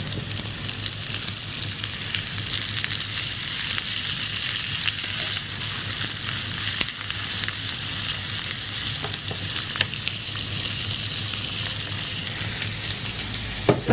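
Half a kilo of raw minced meat sizzling steadily in hot oil with softened onions, just added to the pan, while a slotted spatula stirs it with occasional scrapes and clicks against the pan.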